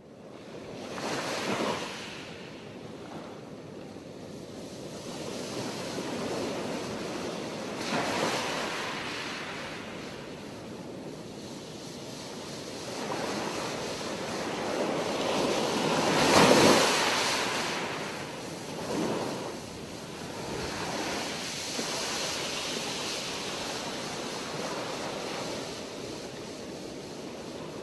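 Ocean surf: waves washing in and breaking, the sound swelling and easing off every few seconds, with the biggest surge a little past halfway.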